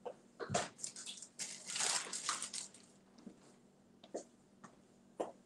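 A person handling things: scattered light clicks and knocks, with a stretch of rustling from about one and a half to two and a half seconds in.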